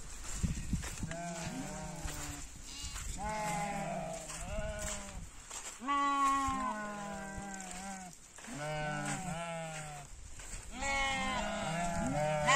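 A mixed flock of sheep and goats bleating, several animals calling over one another in wavering calls, loudest about six seconds in and near the end.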